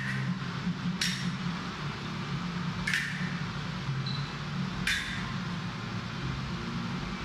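Steel fencing blades clinking together four times, one to two seconds apart, each a sharp click with a short metallic ring, over a steady low hum.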